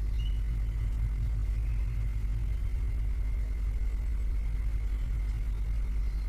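Steady low rumble, with a faint high tone above it.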